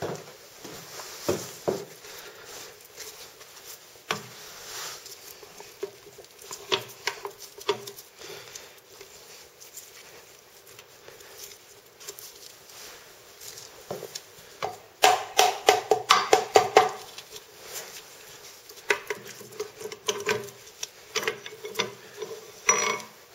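Steel gears and synchronizer parts of a 1948 Chevrolet three-speed transmission clinking and rattling against each other and the cast-iron case as the main shaft is worked loose by hand and drawn out. Scattered light clicks, with a dense run of ringing metal clinks about fifteen seconds in.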